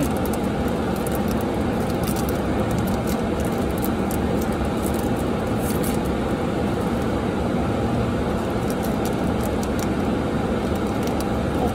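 Foil trading-card booster pack crinkling as it is handled and torn open at the top, in scattered sharp crackles, over the steady hum of a car's cabin.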